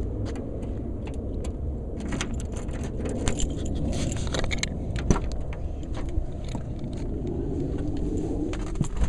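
Handling noise from a hand-held camera: a run of short clicks, taps and jangles, densest in the middle, over a steady low rumble.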